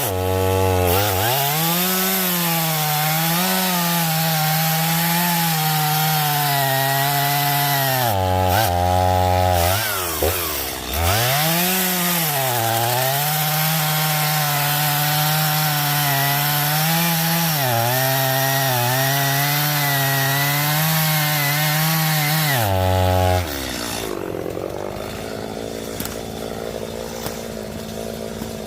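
Two-stroke chainsaw running at high revs while cutting up a felled tree, its pitch sagging and wavering as the chain loads up in the wood. It drops off briefly twice about a third of the way in, then settles to a quieter idle for the last five seconds or so.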